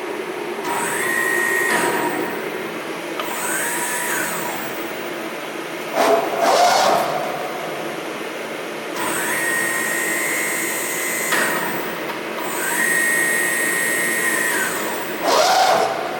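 Safan SMK servo-electric press brake running: its servo drives whine up, hold and wind down in repeated strokes, four times, with a short louder clatter about six seconds in and another near the end.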